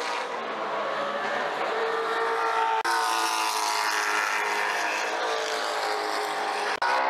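Race car engines running hard on a circuit, their pitch sliding down and back up. The sound breaks off abruptly and changes twice, about three seconds in and near the end.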